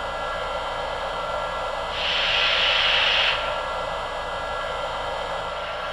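Lionel Shay model locomotive's onboard sound system playing a steady steam hiss through its speaker, with a louder burst of hiss about two seconds in that lasts just over a second.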